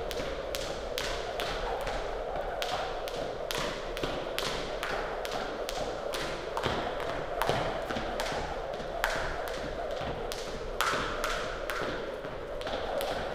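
Jump rope skipping: the rope slaps the floor in a steady rhythm of about two sharp taps a second, over a steady hiss.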